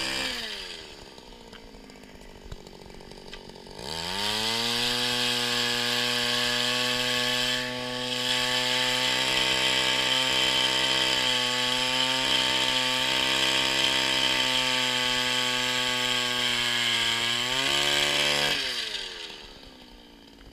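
Gas-powered ice auger engine dropping to idle, then revving up about four seconds in and running at high speed while the auger bores through the ice. Its pitch wavers a little under load, and it drops back to idle near the end.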